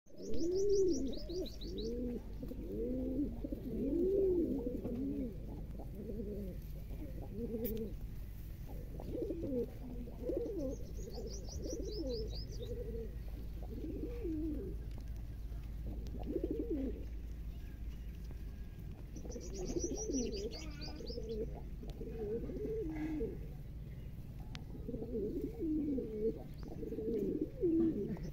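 A flock of domestic pigeons cooing, with many low, overlapping coos that rise and fall. Three times, a short, quick, high trill from a small bird cuts in.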